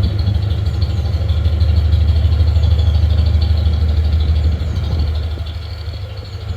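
Narrowboat diesel engine running steadily underway, a low pulsing drone that drops in level about five seconds in.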